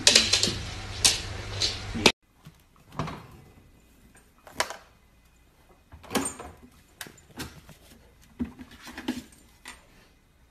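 Louder thumps and scuffling as a husky jumps about on a wooden floor. After a sudden cut, scattered light knocks and rattles as a husky puppy climbs onto the shelves of an open refrigerator.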